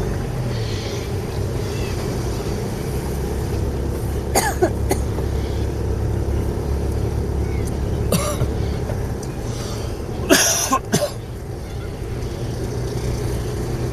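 Steady engine and road noise of a car driving, heard from inside the cabin, with a person coughing a few times in short bursts, loudest near the end.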